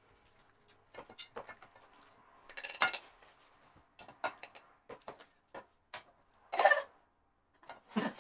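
Cutlery and crockery clinking and knocking in short, irregular clatters, the loudest about three seconds in and again near seven seconds.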